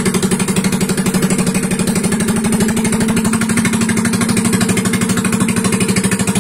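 Yamaha Mio single-cylinder four-stroke scooter engine idling steadily, with an even rapid pulsing chug and no revving.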